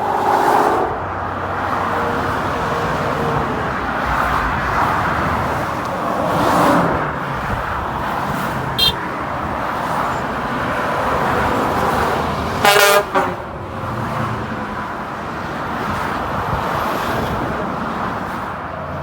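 Steady road noise of a vehicle driving on a highway, with one short, loud horn blast from a passing vehicle about two-thirds of the way through.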